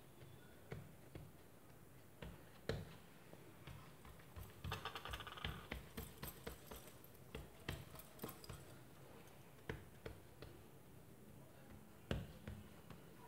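A hand patting and pressing soft yeast dough flat on a floured stone countertop: scattered soft pats, with a brief light rattle about five seconds in.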